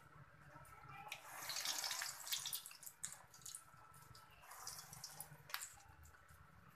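Hot oil sizzling and crackling around balls of urad dal batter deep-frying in a kadhai, with many small pops. It swells louder about a second in, then settles back to a gentler sizzle.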